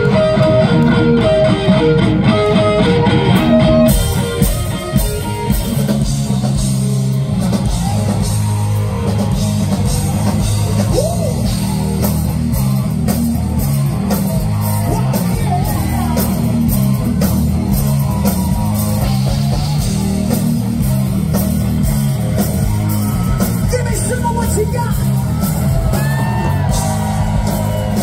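Hard rock band playing live and loud: an electric guitar figure alone at first, then about four seconds in the full band comes in with drums, bass and distorted electric guitars, a singer's voice over it.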